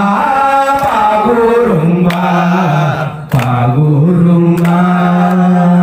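Men singing together, the lead voice into a handheld microphone, in long held low notes that step down and back up, with a short break about three seconds in.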